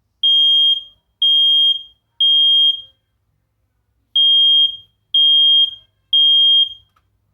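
First Alert 10-year sealed smoke alarm sounding on test: two groups of three loud, high-pitched beeps, each about half a second long, with a short pause between the groups. This is the standard three-beep (temporal-three) evacuation pattern of a smoke alarm.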